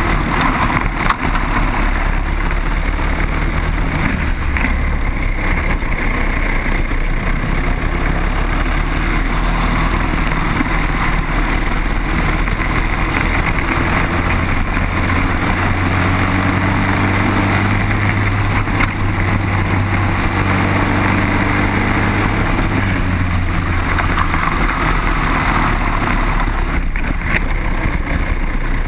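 Briggs & Stratton single-cylinder four-stroke kart engine running at racing speed, heard onboard, its note rising and falling as the kart accelerates and brakes through the corners.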